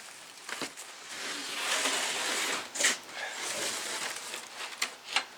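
Wheels of a loaded engine stand rolling and scraping over wooden planks, with several sharp knocks and clunks as it is pushed.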